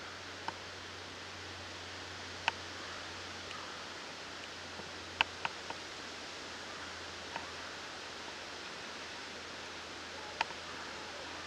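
Steady faint hiss with about seven scattered sharp snaps and clicks as a black bear walks in and feeds at a log-covered bait pile. The loudest snaps come about two and a half, five and ten seconds in.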